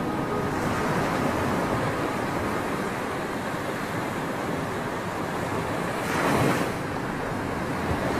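Ocean surf: a steady wash of waves breaking on a rocky shore, with one louder swell about six seconds in.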